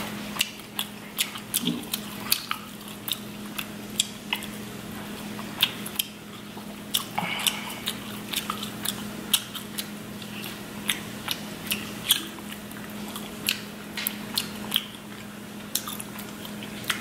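King crab leg shells cracking and snapping as they are broken open by hand, with many sharp clicks and a fork scraping out the meat, mixed with wet chewing.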